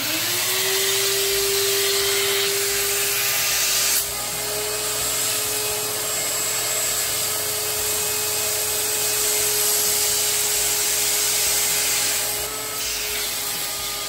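Shop vac running, its motor winding up at the start with a rising whine and then running steadily, drawing air through a Vinyl Vac wand with a felt pad resting on a wet vinyl record to suck the cleaning fluid off. About four seconds in the sound drops a little and the whine steps slightly higher as the airflow changes.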